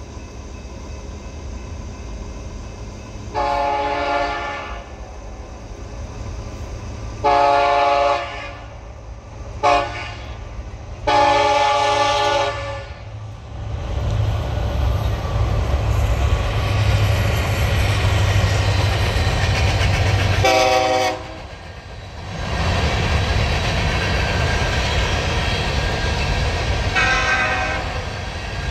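BNSF diesel locomotive horn blowing the grade-crossing signal, two long blasts, one short and one long, as the coal train approaches. The locomotives then pass with a loud deep rumble, give one more short horn note about 20 seconds in, and the loaded coal cars roll by with a steady rumble, a fainter horn note sounding near the end.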